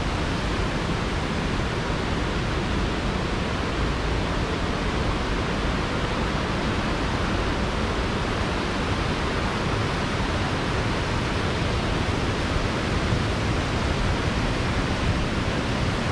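Steady rush of water from a waterfall and river rapids.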